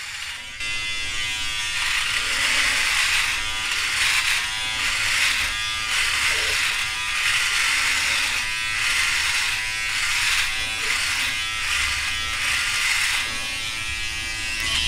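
Philips Norelco OneBlade electric trimmer-shaver buzzing as it is drawn in repeated strokes through neck and jaw stubble, cutting the beard. The buzz gets louder about half a second in and wavers with each pass.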